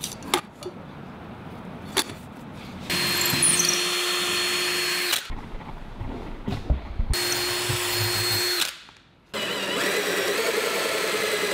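Power drill running in three bursts of about two seconds each, starting about three seconds in, with a steady motor whine: drilling holes through the floor for the table-leg screws.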